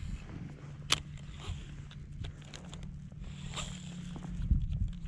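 Quiet sounds of wading in shallow open water, with a low steady rumble and a few light clicks, the sharpest about a second in.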